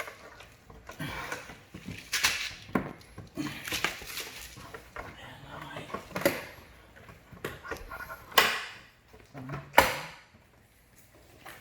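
Plastic body panel and push clips of a Can-Am Spyder RT being worked loose by hand: irregular plastic clicks, rattles and scrapes, with two sharp, louder snaps near the end as the clips let go.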